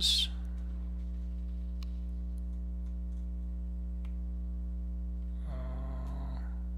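Steady electrical mains hum with its overtones on the recording, with a few faint clicks. A brief murmured voice sound comes about five and a half seconds in.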